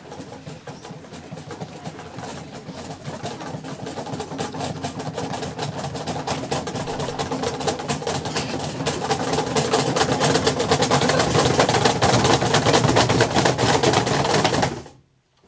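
A group of cajóns (box drums) played together in a fast, dense roll of hand strikes that swells steadily louder and stops abruptly near the end.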